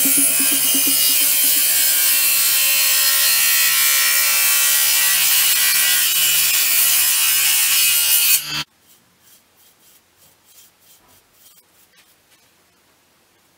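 Small bench-top saw running and cutting a thin wooden strip: a steady motor hum under loud cutting noise that stops abruptly about two-thirds of the way through. After it, faint light taps and rubbing as the wooden strips are handled.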